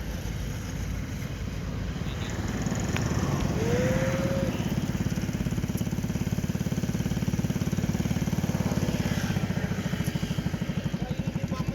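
Small engine running with a fast, even low pulse, growing louder about two and a half seconds in and then holding steady.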